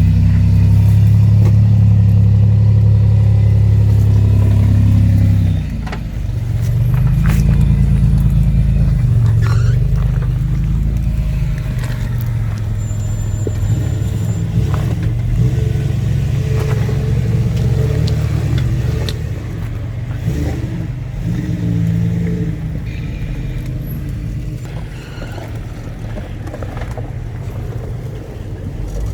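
Engine of a built off-road rock crawler under load, held at steady revs, then easing off briefly about six seconds in and coming back with revs rising and falling as it works over rocks. Scattered knocks and clunks from the rig on the rocks, the engine gradually easing toward the end.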